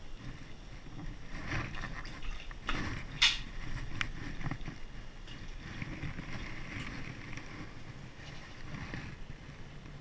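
Irregular rustling and handling noise from an angler moving about with his gear and clothing. A loud knock comes about three seconds in and a sharp click about a second later.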